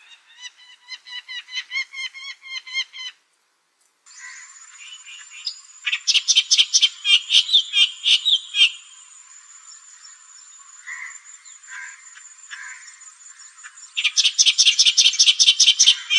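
Clamorous reed warbler singing: loud, harsh chattering phrases of rapidly repeated notes, with quieter notes in between. A brief silent break comes about three seconds in, and a steady thin high tone runs behind the song from then on.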